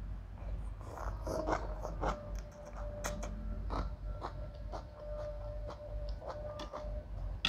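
A person chewing a mouthful of soft rice noodles close to the microphone, with many short wet mouth clicks and smacks. A faint steady hum runs underneath.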